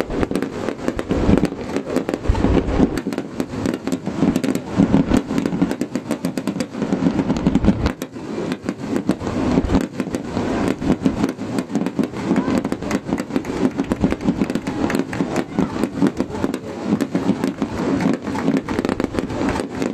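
Aerial fireworks bursting and crackling, many sharp pops in quick succession, over steady crowd noise.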